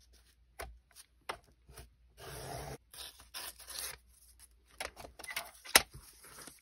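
Paper trimmer's sliding blade drawn through a sheet of old album paper, a short rasp about two seconds in, amid paper rustling and scattered clicks and taps as the page and a metal ruler are moved, the sharpest tap near the end.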